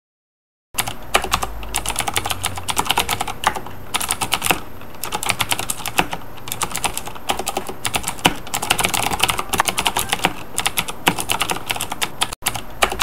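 Fast, continuous typing on a laptop keyboard, many keystrokes a second, starting just under a second in after a brief silence.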